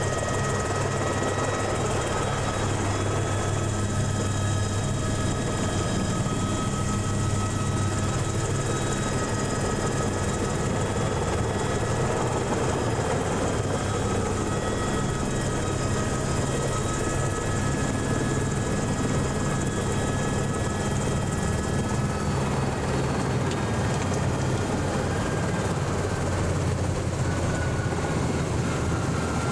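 Eurocopter AS350 helicopter with its Turbomeca Arriel turboshaft engine and rotor running steadily, heard from inside the cabin: a loud low drone under a steady high whine.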